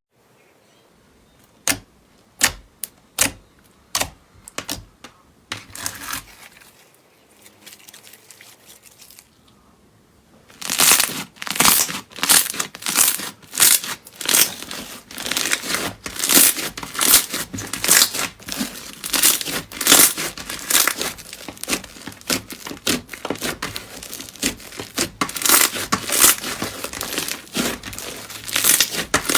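Slime being squeezed and pressed by hand, making sticky crackling pops and squelches. A few scattered pops at first, then a steady run of them from about ten seconds in.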